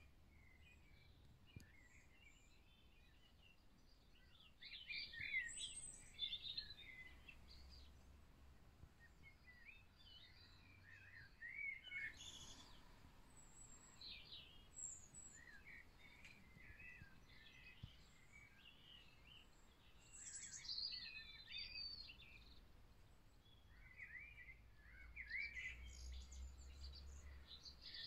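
Birds singing: bouts of short chirps and quick whistled notes every few seconds over a quiet low background hum.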